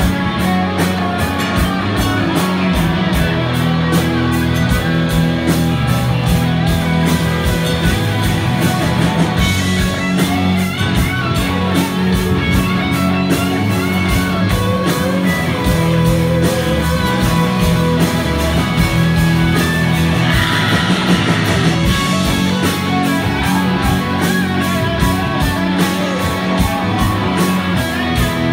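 Live rock band playing loudly, with electric guitars over a steady drum beat.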